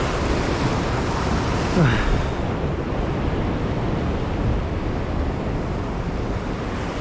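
Sea surf washing over and breaking against coastal rocks in a steady rush, with wind buffeting the microphone. A brief falling tone cuts through about two seconds in, where the surf is loudest.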